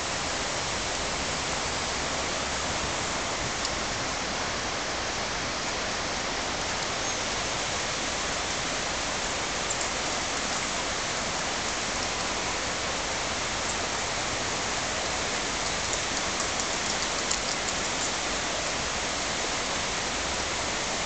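Steady, even hiss without any pitch, with a few faint high ticks about three quarters of the way through.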